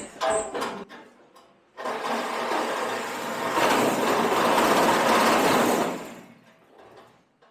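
A few metal clanks, then a power tool working sheet metal for about four seconds, starting about two seconds in and dying away near the end.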